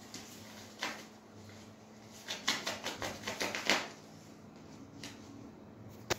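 Light scuffs and rustles from a cat wrestling with a small white toy on a tiled floor, with a quick run of scuffs about two to four seconds in and a sharp click near the end, over a faint steady hum.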